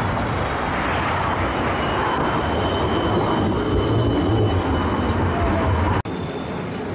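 Low-floor electric tram rolling into a stop alongside the platform: a steady rumble of wheels on rail, with a faint thin high-pitched squeal midway. The sound cuts off suddenly about six seconds in and gives way to a different steady rumble.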